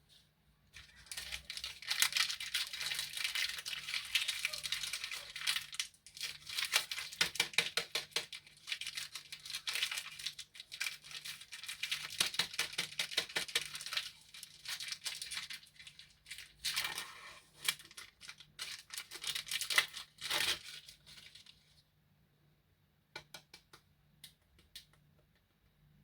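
Plastic candy wrappers crinkling and tearing as sweets are unwrapped by hand, in several stretches of dense crackling with short breaks between. A few small clicks follow near the end.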